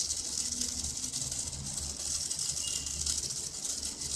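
Small DC gear motors of a wheeled robot prototype spinning its wheels in the air, a steady high-pitched whir.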